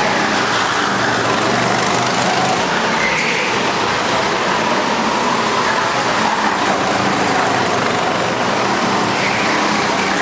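Several go-kart engines running together on an indoor track, a steady loud din with engine whines rising and falling in pitch as the karts accelerate and slow through the corners, echoing in the hall.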